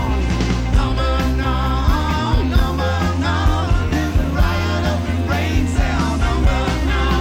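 Rock band playing a song from a digitised cassette tape, with singing over drums, bass, guitar and keyboards and a steady beat.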